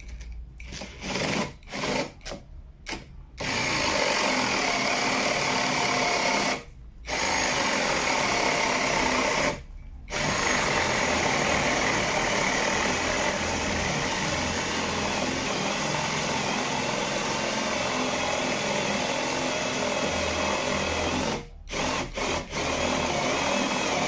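SfunPro 16V cordless drill/driver boring through a log with a long wood bit, in drill mode on its second (fast) speed. A few short trigger bursts come first, then long steady runs of the motor as the bit cuts through the wood, broken by two brief stops and a few short bursts near the end.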